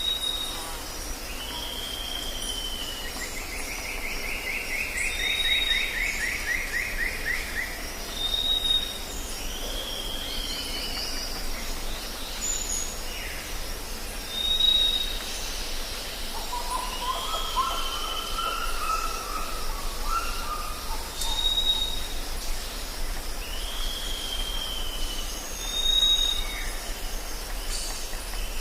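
Jungle birds calling over a steady high-pitched drone. A short high whistle repeats every few seconds, with down-slurred whistled calls, a fast trill near the start and a lower warbling call in the middle.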